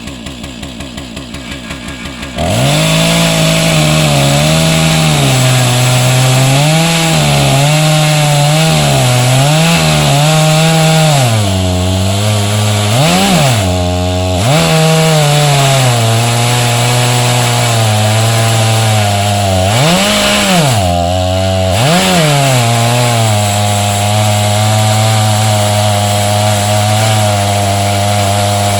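Chainsaw on an Alaskan chainsaw mill, idling, then throttled up about two seconds in and running at high revs as it rips a lengthwise cut through a log. Its engine speed wavers under load, drops sharply and recovers several times, then holds steady near the end.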